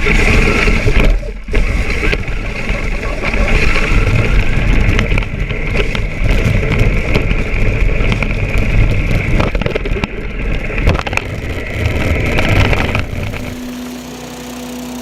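A 1:10 scale four-wheel-drive RC truck is driving hard. Its electric motor and drivetrain make a steady high whine over the rattle and crunch of the tyres and chassis. The sound starts abruptly and falls away after about thirteen seconds, leaving a quieter steady hum.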